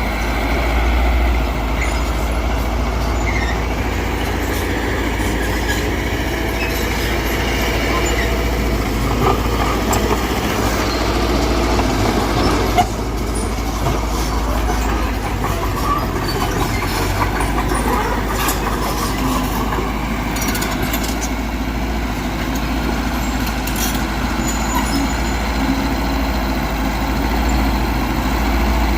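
Diesel engine of heavy earthmoving machinery running steadily under load. A sharp knock comes a little before halfway, with a few lighter clanks scattered through.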